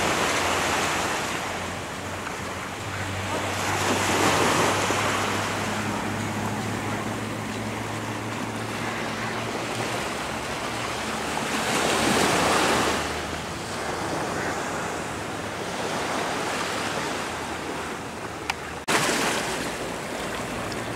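Surf on a sandy beach: small waves breaking and washing up the shore, swelling loudest about four seconds in and again around twelve seconds.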